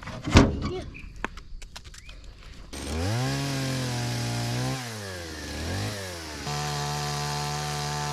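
A small petrol engine starts up about three seconds in, its pitch climbing, dropping back briefly and climbing again before it settles into a steady run. Before it there is a single thump and a few light knocks.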